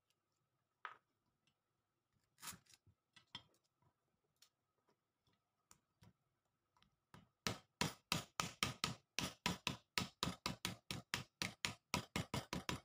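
Kitchen knife striking lemongrass on a wooden chopping board: a few single knocks, then from about seven seconds in a fast, even run of strikes, about four or five a second.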